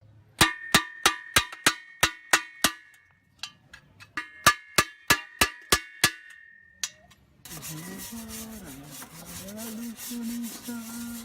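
Metal being struck, two runs of about eight sharp ringing blows at roughly three a second. A few seconds later comes a steady rasping, scraping noise.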